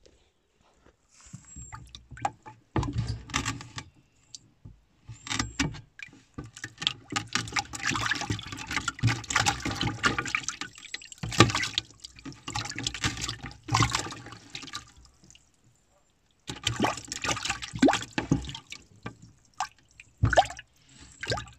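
Water splashing and sloshing in a plastic bucket as a hand reaches in among caught trout, in irregular bursts with short pauses between them.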